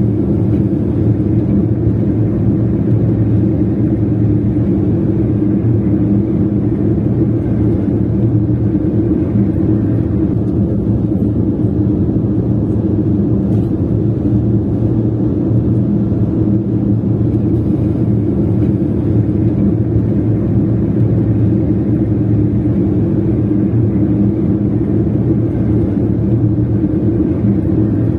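Car being driven at a steady pace: a constant low engine and road drone that holds the same pitch throughout.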